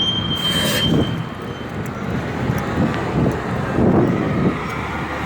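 City street noise: a low rumble of passing vehicles. A high, steady squeal fades out in the first two seconds, and a short hiss comes about half a second in.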